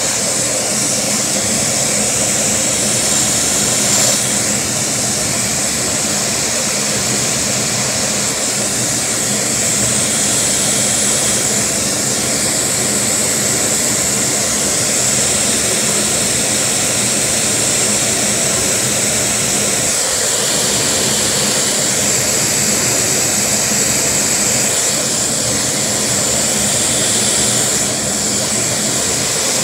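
Lego vacuum engine running at a low idle, its flywheel spinning and its plastic parts making a steady, rapid clatter.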